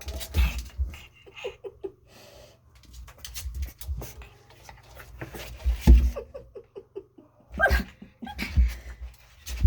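Chug puppies (Chihuahua–pug crosses) making short, high squeaks and little whimpers in quick runs, among knocks and thumps as they move about.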